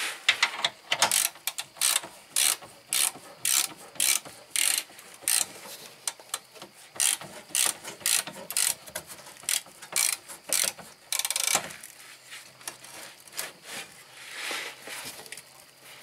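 Hand socket ratchet clicking in quick, even strokes, about two a second, as a bolt is worked. The strokes stop about three-quarters of the way through, leaving only fainter, irregular clicks.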